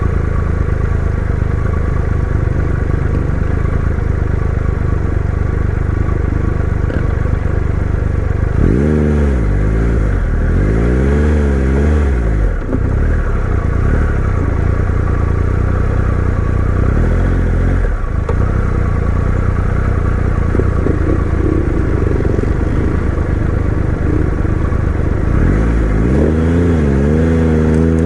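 Triumph Tiger 1200 adventure motorcycle's three-cylinder engine running steadily under way on a dirt trail. The revs rise and fall a few times around the middle and again near the end.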